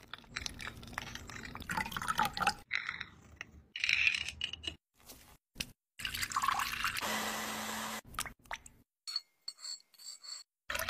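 A string of short food-prep sounds: a metal spoon moving among gummy candies in a ceramic bowl, and then a blender running for about a second. Near the end come light clinks and wet drips as a spoon stirs a thick green purée.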